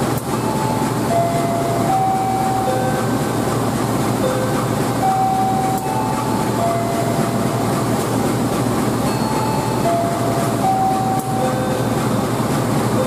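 CC 201 diesel-electric locomotive and its train coaches running steadily as it pulls slowly into the station. A simple repeating tune of short notes plays over the train noise.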